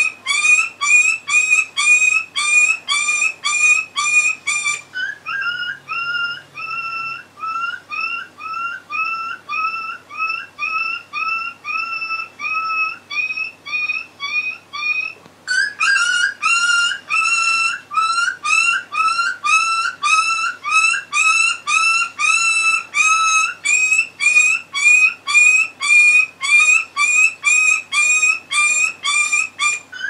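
Ringtone of quick, high, squeaky whistle-like notes repeating about two to three a second, a dog-themed ringtone. It turns softer and duller about five seconds in, then brightens again about halfway through.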